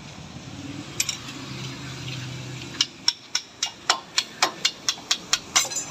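Small hammer striking a steel punch held against the handbrake assembly of a road roller. There is one tap about a second in, then a quick run of about a dozen sharp metallic strikes, about four a second, from about halfway through.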